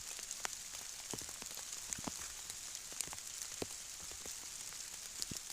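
Steady rain falling: an even high hiss with scattered ticks of individual drops.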